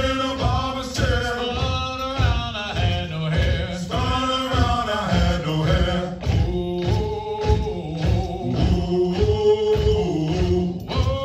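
Male voices singing a Marine Corps marching cadence, chanted line by line over a steady low beat of about two a second.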